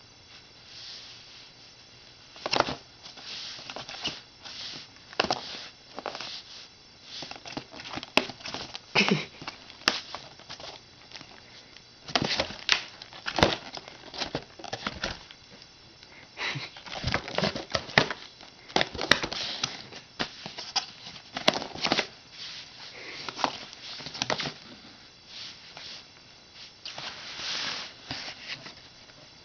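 Cardboard shoe box scratched, scuffed and knocked in irregular short bursts of rustling and taps, with a few sharper knocks around the middle.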